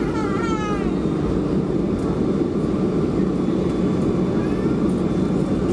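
Boeing 737-300's CFM56 turbofan engines running steadily at low power as the jet taxis, heard inside the cabin as a steady rumbling drone. A short falling tone sounds near the start.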